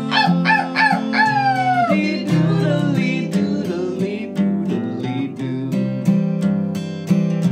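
A rooster crowing, a cock-a-doodle-doo of a few short notes and one long falling note, over strummed acoustic guitar. The guitar accompaniment then carries on alone.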